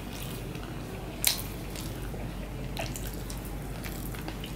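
Close-up wet chewing and lip-smacking of a mouthful of rice and vegetable curry eaten by hand, with a few short smacking clicks, the sharpest about a second in.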